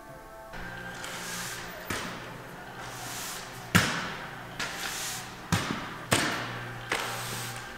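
A series of sharp knocks with a ringing tail, the first faint about two seconds in, the loudest near four seconds in, then roughly one a second, over a steady low hum.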